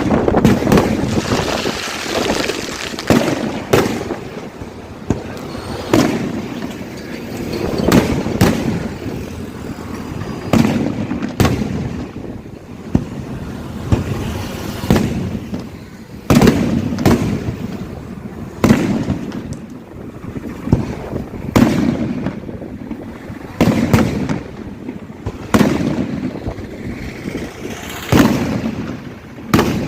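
4.5-inch aerial firework shells bursting back to back: repeated sharp bangs every second or two, with rumbling booms and echoes rolling between them.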